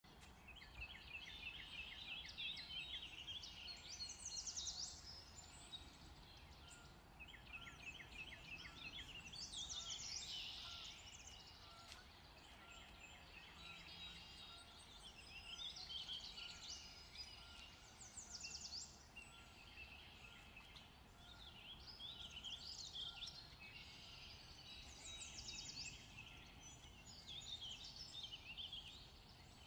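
Wild birds singing: a varied song phrase every few seconds, some opening with a rapid trill of repeated notes, over steady low background noise.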